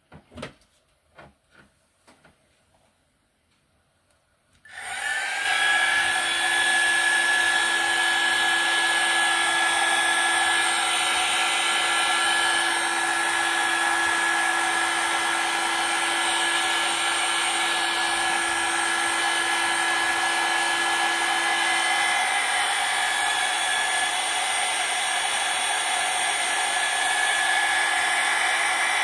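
A few small clicks and knocks, then about five seconds in a miniature electric pottery wheel's motor starts up and runs with a steady whine.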